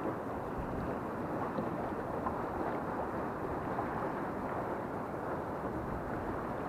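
Steady wind rushing over the microphone, with choppy water around a small boat.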